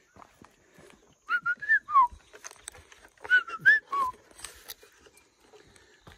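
A short whistled phrase of several notes, two steady notes, then a rising one, then a falling one to end it. It is given twice, about two seconds apart.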